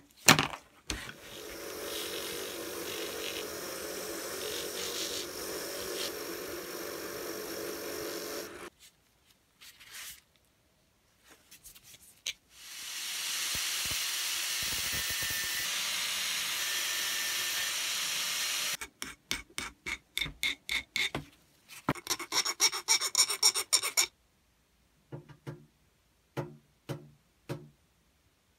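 Angle grinder with a thin cut-off disc cutting through a small metal fitting clamped in a vise: a steady high hiss lasting about six seconds, midway through. Before it comes a steady tool noise of about eight seconds. After it comes a quick run of sharp strokes or knocks, the loudest sounds here, then a few faint clicks.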